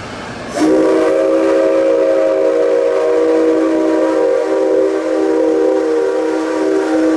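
Steam locomotive whistle of the C57 135 sounding one long, steady blast with several tones at once. A brief rush of air comes first, and the whistle sounds about half a second in.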